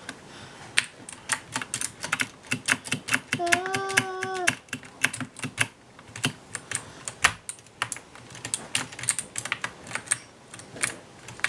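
A toddler pressing and slapping at a computer keyboard, making irregular clicks and clatter of keys. About three and a half seconds in there is a short held vocal sound, about a second long, most likely the child's voice.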